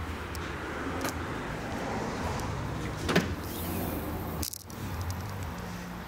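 BMW M235i's turbocharged inline-six idling with a steady low hum. A few light clicks and one sharper knock come about three seconds in, and the sound drops out briefly a little after four seconds.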